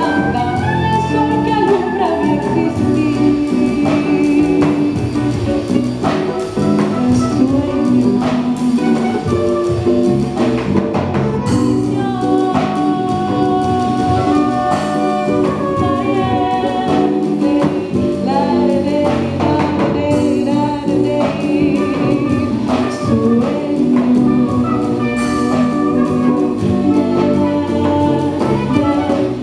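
A woman singing live with a small jazz-tinged Colombian band: acoustic guitar, electric bass, hand percussion and saxophone playing along.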